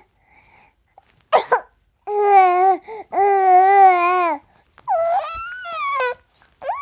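Baby babbling: a short squeal, then a few drawn-out high-pitched vowel sounds with a wavering pitch, and a call that slides down in pitch near the end.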